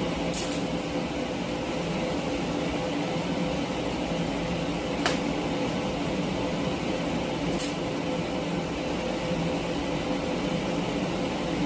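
TIG welder tack-welding a steel bracket: a steady buzzing hum and hiss with a few sharp ticks scattered through it.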